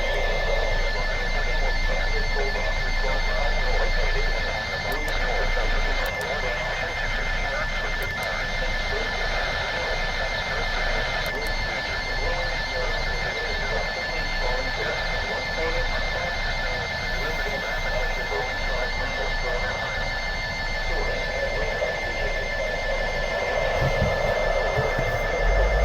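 A steady, high two-pitch alert tone held without a break, over the hiss and crackle of weather-radio static, as heard through a NOAA Weather Radio receiver.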